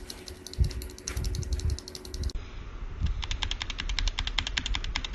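Fast typing on a mechanical keyboard with Gateron Ink Black v2 linear switches: a rapid, even run of keystroke clacks, roughly eight to ten a second. The character of the typing changes abruptly a little over two seconds in.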